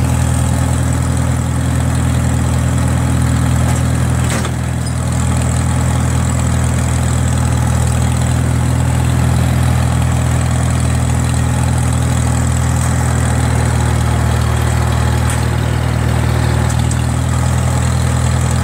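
1947 Farmall H's four-cylinder engine idling steadily, with one knock and a brief dip in loudness about four seconds in.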